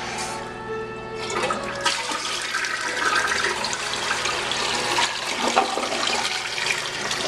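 2004 Crane Galaxy toilet flushing: a rush of water into the bowl begins about a second in and keeps surging unevenly. Before it there is a steady water hiss.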